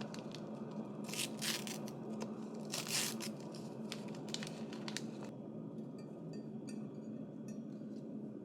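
Close handling noises: two short bursts of rustling, like tearing or crinkling packaging, about one and three seconds in, then a scatter of light clicks and taps over a steady low hum.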